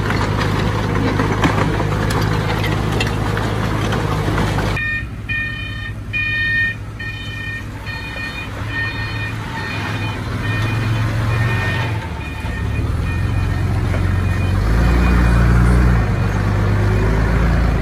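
Diesel engine of heavy earthmoving machinery running. From about five seconds in, a reversing alarm beeps about twice a second over it. Near the end the engine rises under load.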